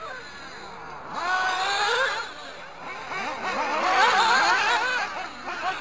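Several nitro RC buggy engines whining at high revs, their pitch rising and falling quickly as they throttle up and back off, loudest about four seconds in.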